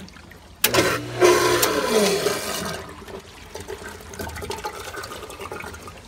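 Water gushing and gurgling in the open strainer pot of a pool pump, starting suddenly a little over half a second in and loud for about two seconds, then settling to a quieter wash of water.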